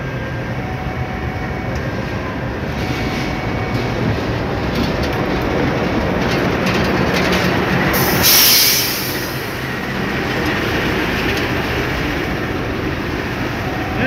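Diesel-electric locomotive passing close by at low speed, its engine running and its wheels rolling over the rails. The sound builds as it comes alongside and peaks about eight seconds in with a brief sharp high-pitched noise, then eases slightly.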